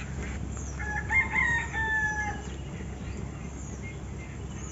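A rooster crowing once: one drawn-out call of about a second and a half, starting about a second in, rising and then held with a slight fall at the end.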